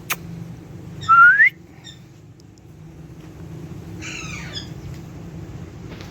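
Pet parakeet calling: a loud squawk rising in pitch about a second in, then a second, quieter warbling call about four seconds in, over a steady low hum.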